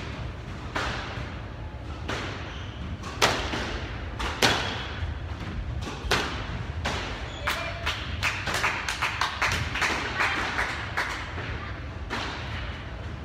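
Squash rally: a squash ball struck by rackets and rebounding off the court walls, a series of sharp cracks and thuds. The impacts come faster in the second half and stop near the end as the point is won.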